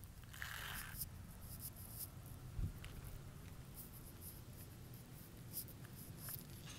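Faint outdoor ambience: a low rumble of light wind on the microphone, with scratchy handling noise and a single soft bump about two and a half seconds in.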